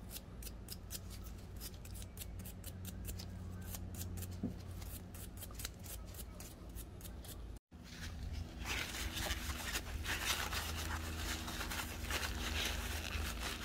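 A small wire brush scrubbing an oiled AR-15 bolt: a quick run of short scratchy strokes, then, after a brief cut, a louder and denser stretch of rubbing.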